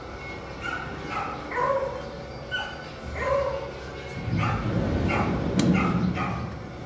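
A dog yipping in short high calls, several times over. A single sharp click comes about five and a half seconds in.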